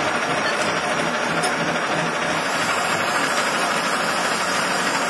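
A hob cutter on a milling machine cutting the teeth of a motorcycle chain sprocket under cutting oil, making a steady machining noise as the machine runs.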